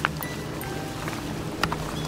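Background music with a low sustained drone, and two short sharp clicks about a second and a half apart.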